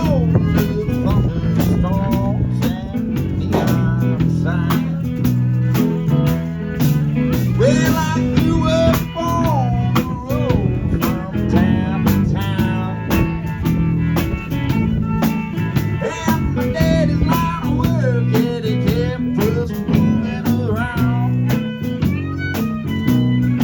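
Live band playing an instrumental break in a country song: a lead guitar playing bent, sliding notes over bass and a drum kit's steady beat.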